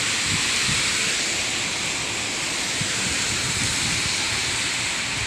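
Steady hiss of rain falling on a wet street.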